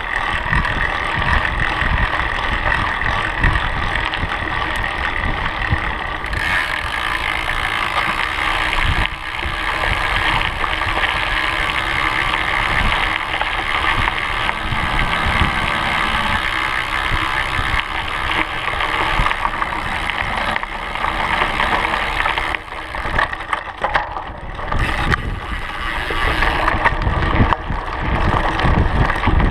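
Knobby mountain-bike tire rolling over a gravel trail: a steady rushing hum with low rumble from wind on the microphone, and a few knocks and rattles from bumps near the end.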